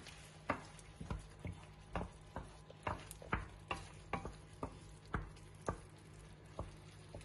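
Wooden spatula stirring thick tomato sauce in a stainless steel frying pan, knocking and scraping against the pan about twice a second.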